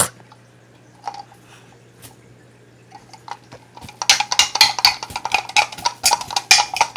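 A few faint taps, then from about four seconds in a rapid, uneven clatter of plastic toys knocking together and bead necklaces rattling as the puppets are bashed against each other.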